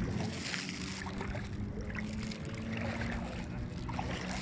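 Shallow seawater lapping and trickling, with small splashes, over a steady low motor drone.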